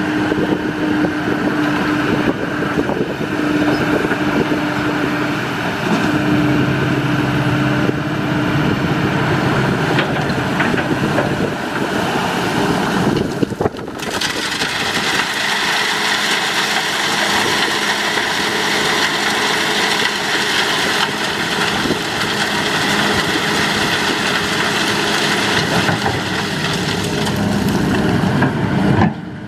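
Kobelco SK200 hydraulic excavator's diesel engine running steadily while working, with a steady hum that changes pitch. The sound breaks off briefly about halfway through and again near the end.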